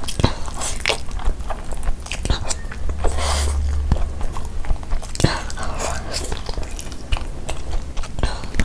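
Close-miked eating by hand: wet chewing and lip smacks as she works through mouthfuls of khichdi (rice and lentils), with many short clicks. Near the end she bites into a piece of spiced chicken.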